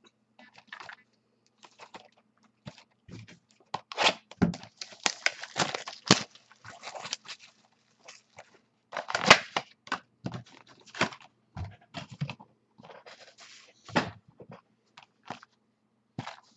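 Packaging of a box of trading cards being torn open and handled: wrapper tearing and crinkling in irregular bursts.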